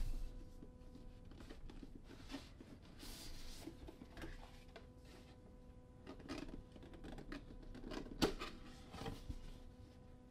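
Faint handling of a cardboard product box: rustling and light taps as it is turned over and its lid and inner flaps are opened, with one sharper knock about eight seconds in.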